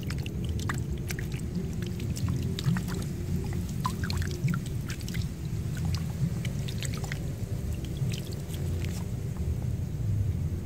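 Hands digging and squelching in wet rice-paddy mud, many small wet clicks over a steady low rumble.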